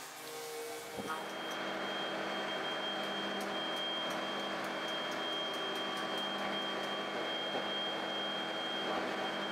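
Steady machinery running with a low hum and a constant high whine, starting about a second in, from the powered flight control equipment being run for flight control surface testing on a Vulcan bomber.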